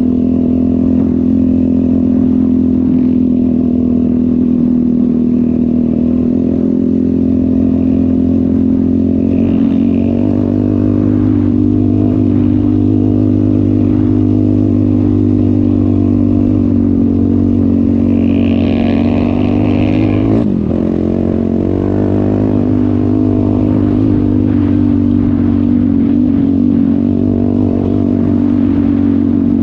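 ATV engine running steadily under throttle while riding, its pitch held nearly constant, with a brief dip and recovery about twenty seconds in.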